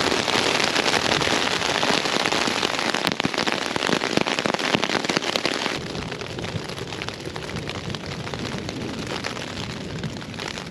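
Heavy rain pelting a tent's fabric in a dense patter. About six seconds in, the noise drops suddenly to a lighter, quieter patter.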